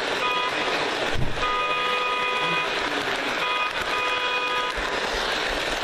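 Lionel Hot Wheels toy train's electronic horn sounding twice, each time a short blast followed by a longer one, over a steady running noise. A single knock comes a little over a second in.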